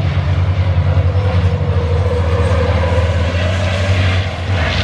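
Race truck's diesel engine droning as it laps the circuit: a steady low drone with an engine note that rises and falls in the middle, and a brief surge of noise near the end.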